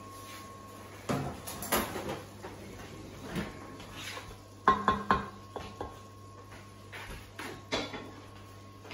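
Scattered clinks and knocks of kitchen utensils and dishes being handled, the loudest two close together about five seconds in.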